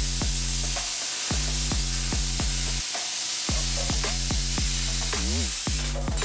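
Plasma cutter arc hissing steadily as the torch cuts through steel sheet, with background music playing over it.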